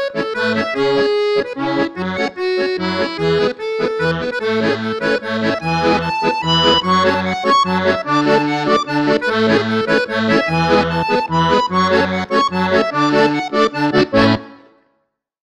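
Accordion playing a tune, with alternating bass notes and chords pulsing under a melody. The music ends shortly before the end of the clip.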